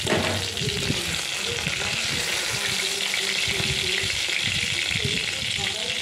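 Hot oil sizzling steadily in an iron kadai around pieces of fried parshe fish, with a scatter of small crackles and spits.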